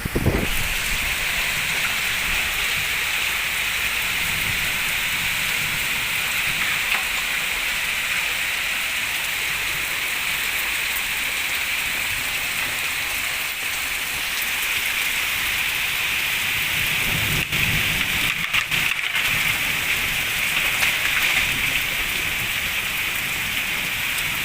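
Steady rain falling, mixed with strong wind. A low rumble and a few sharper jolts come about two-thirds of the way through.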